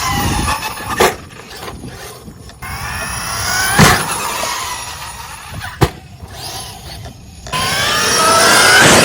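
Electric motor and helical-cut gears of a 1/5-scale RC short course truck whining, rising and falling in pitch as the throttle comes on and off. Three sharp knocks come along the way, and the whine grows louder near the end.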